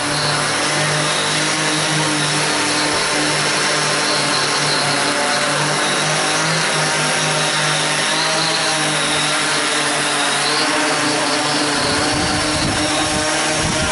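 Quadcopter drone's electric motors and propellers humming steadily in flight, the pitch drifting a little as it manoeuvres. A low rumble joins near the end.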